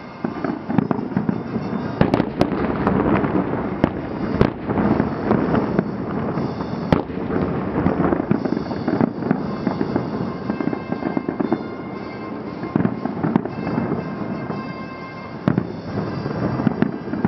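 Fireworks display going off in a dense barrage: repeated sharp bangs over continuous crackling. Music with sustained tones plays underneath, with the heaviest bursts a couple of seconds in and again near the end.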